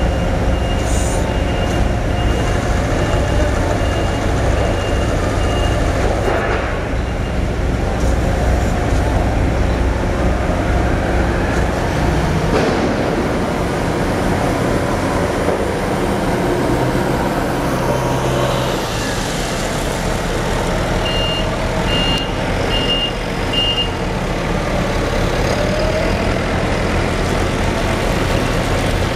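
Steady drone of diesel machinery at a quay: a moored fish carrier ship, its deck crane and a forklift. Evenly spaced high warning beeps sound through the first few seconds, and four more come about two-thirds of the way through.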